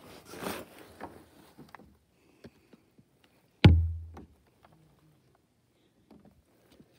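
Shuffling and handling noise, then a single heavy thump with a low boom that dies away over about half a second.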